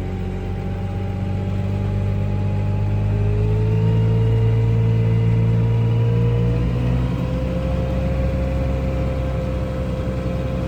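Grimme Varitron 270 self-propelled potato harvester running steadily under load: a low engine hum with a thin whine that rises in pitch a few seconds in and grows louder through the middle.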